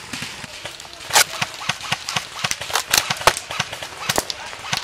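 Scattered sharp cracks and clicks of airsoft rifles firing single shots at irregular intervals, a dozen or so, the loudest about a second in.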